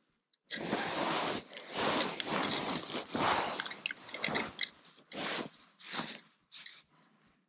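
Close rustling and crunching handling noise from the ice angler moving his jacket and snow while working a small ice rod and reel. It comes as a series of scraping bursts, each about half a second to a second long, that thin out toward the end.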